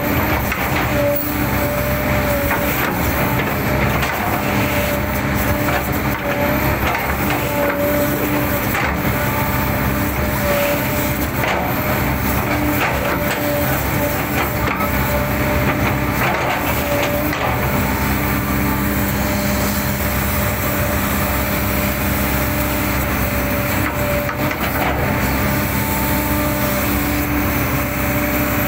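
Large excavator's diesel engine running steadily under load, with a steady hydraulic whine, while the bucket repeatedly chops and crushes an oil palm trunk, giving irregular woody knocks and cracks.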